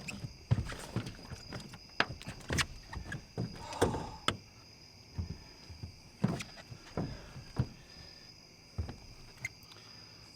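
Irregular knocks and thumps of a large flathead catfish being handled and unhooked in a boat, dying away near the end. Crickets trill steadily in the background.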